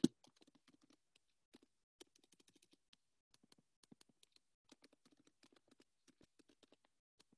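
Faint typing on a computer keyboard: quick runs of keystrokes, several a second, with short pauses between runs. One louder knock comes right at the start.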